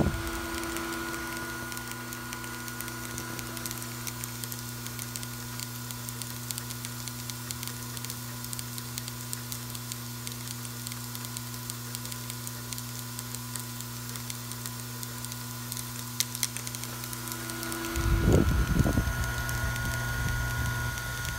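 Vibratory bowl feeder running: a steady low electromagnetic hum, with small cylindrical parts pattering and ticking as they shake along the spiral track. A louder low rumble comes in about eighteen seconds in.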